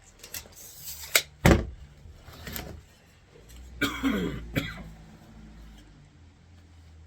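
Workbench handling sounds: a few sharp knocks and clatters of tools and wood, the loudest about a second and a half in. Then a short rasping whir that falls in pitch and ends in a click.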